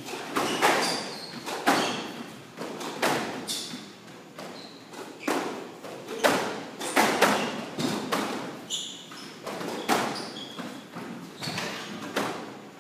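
Squash ball struck by racquets and smacking the walls in a rally, a sharp hit about every second at an uneven pace, with short high squeaks of court shoes on the hardwood floor between hits.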